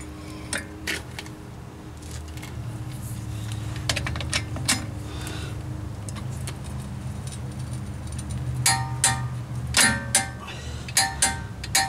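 Steel lug nuts clinking together in the hand and a torque-wrench socket clinking on the lug nuts of a wheel spacer, with a few scattered clicks and then quick runs of sharp, ringing clinks in the last few seconds.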